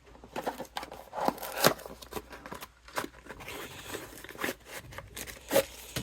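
Packaging handled as a small box is opened and emptied: irregular tearing, crinkling and scraping with sharp clicks, loudest about a second and a half in.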